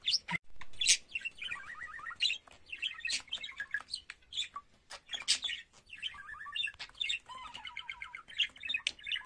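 Male budgerigar warbling: a rapid, near-continuous chatter of short chirps, clicks and squeaky notes.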